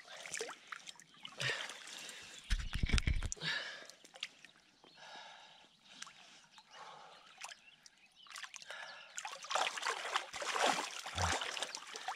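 River water sloshing and splashing around an angler's hands as a large asp is held in the current and released, the splashing growing livelier towards the end. A dull low thump about two and a half seconds in.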